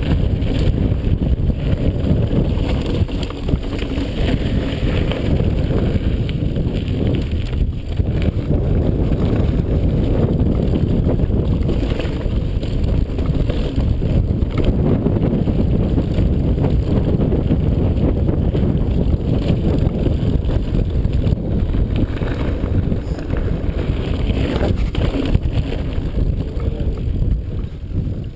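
Wind buffeting the action-camera microphone over the rolling noise of mountain bike tyres on a loose gravel trail at speed, with scattered rattles from the bike. It dies down near the end as the bike slows.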